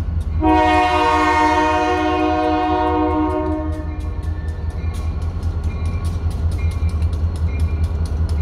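Diesel locomotive horn sounding one blast of about three seconds, a chord of several steady notes, over a steady low rumble. A rapid, regular ticking runs throughout.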